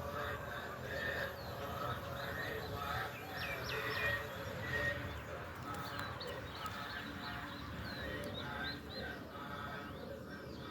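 Small birds chirping, many short quick calls, thickest about three to five seconds in.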